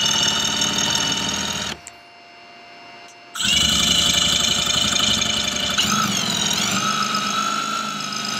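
Power drill running as its bit cuts an angled hole into a kayak's plastic deck. It stops for about a second and a half, then starts again, its whine dropping in pitch about six seconds in as the bit bites.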